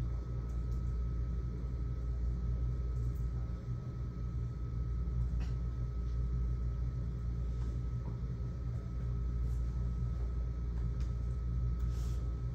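Steady low hum with a faint steady whine above it, the room tone of running fans or ventilation, with a few faint ticks.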